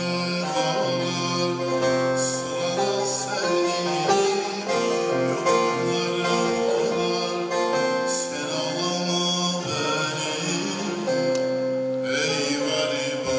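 A man singing a Turkish folk song (türkü) to his own bağlama, the long-necked plucked saz, in long held notes over the plucked strings.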